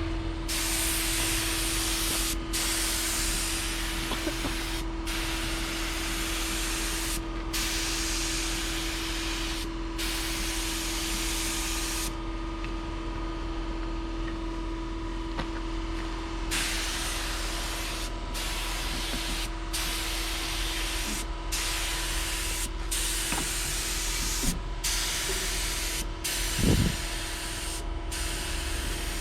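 Air-powered spray gun hissing as it sprays coating in passes. The hiss stops briefly every two to three seconds, with a longer break about twelve seconds in, and a steady hum runs underneath.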